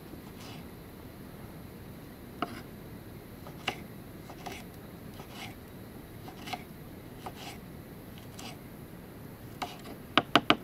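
Kitchen knife chopping vegetables, sharp separate strokes about once a second, then three quick, louder cuts near the end.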